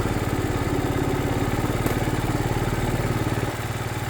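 Engine of the vehicle being ridden in, running steadily, its level dipping slightly about three and a half seconds in.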